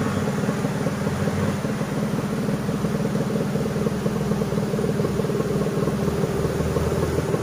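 Trail motorcycle engine running steadily at an even pitch.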